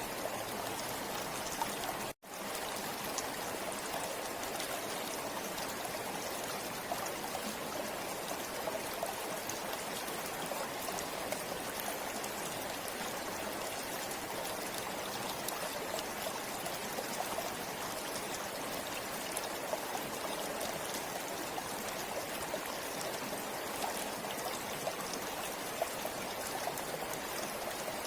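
River water flowing steadily over stones, a continuous rushing and babbling. The sound drops out for an instant about two seconds in.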